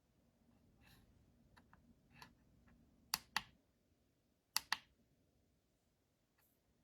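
Plastic buttons on a Shayson digital alarm clock being pressed: two sharp double clicks about a second and a half apart, with a few fainter clicks around them.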